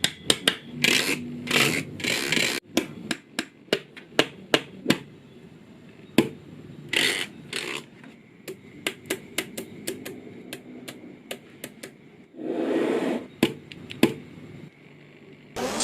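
Small magnetic balls clicking sharply as they snap together one at a time, irregularly, with a few longer rattling stretches as groups of balls slide and shift against each other, the longest about three-quarters of the way through.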